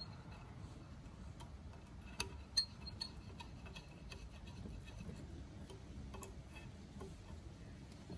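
Allen key turning small screws into the steel retaining plate of a monoball bushing, making faint scattered metallic ticks and clicks, the loudest couple a little over two seconds in.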